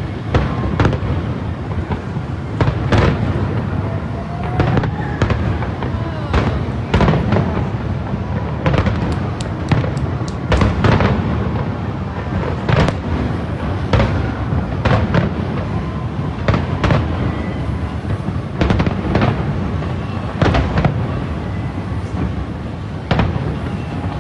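Aerial fireworks display: shells bursting in sharp bangs, about one every second or two at irregular intervals, over a continuous low rumble.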